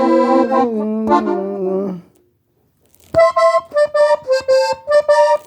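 Diatonic button accordion in G playing a cumbia melody. Held chords change notes and stop about two seconds in. After a pause of about a second comes a quick run of short, separate notes.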